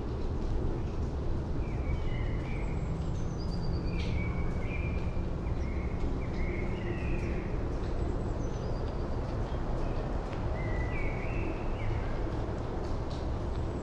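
Steady low rumble of distant city traffic, with small birds chirping and calling repeatedly in short notes over it.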